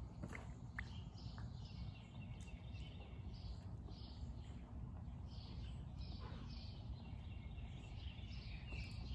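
Outdoor ambience: a low, steady rumble with faint, scattered bird chirps.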